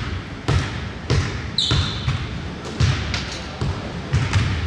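Basketball bouncing on a hardwood gym floor, dribbled at about two bounces a second. A brief high squeak comes about a second and a half in.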